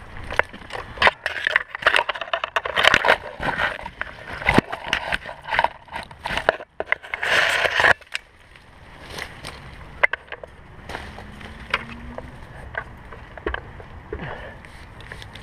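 A climber pushing through leafy tree branches: leaves rustling and twigs crackling and scraping close to the microphone, dense for about the first eight seconds, then only scattered clicks.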